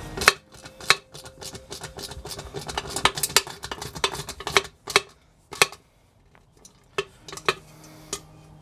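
Small metal parts and fasteners of a headlight bucket clinking and tapping as they are handled and fitted together by hand, in many sharp, irregular clicks, some with a short metallic ring, with a quieter pause about two-thirds of the way through.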